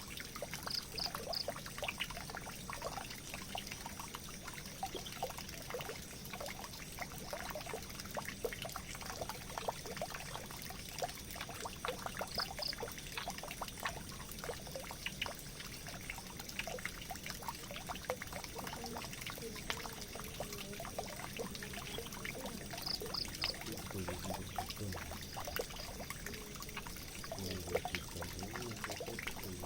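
Water pouring and trickling steadily into a drain, a dense patter of small splashes and drips with no break.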